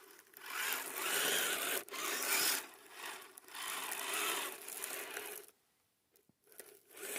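Radio-controlled crawler trucks on plastic tracks driving over logs: small electric motors and gearing whir in uneven bursts while the tracks scrape and clatter. The sound stops for about a second near the end, then starts again.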